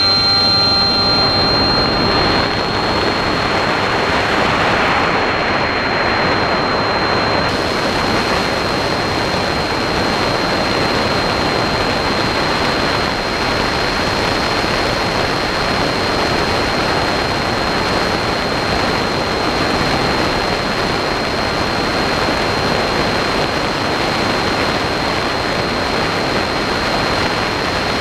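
A drone's electric motors and propellers, heard from a camera on board as it takes off and climbs: a steady high whine over a loud rushing noise. Several further motor tones are heard at takeoff and fade within the first two seconds.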